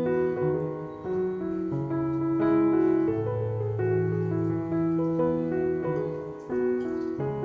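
Background piano music playing slow, held chords that change about once a second.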